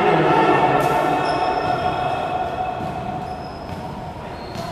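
A sustained horn or buzzer tone, several pitches sounding together, ringing through the gymnasium and fading over a few seconds, with a few short high squeaks.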